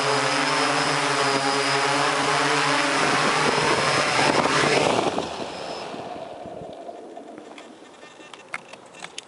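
Hexacopter's six electric motors and propellers running with a steady hum, heard through the camera mounted on the craft. As it comes down onto grass the sound turns rough, and about five seconds in the motors spin down and fade away, leaving a few small clicks near the end.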